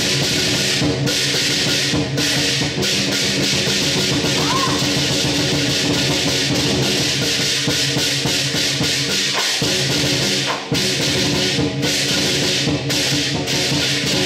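Lion dance percussion: a drum beaten in a fast, continuous beat with cymbals and a ringing gong.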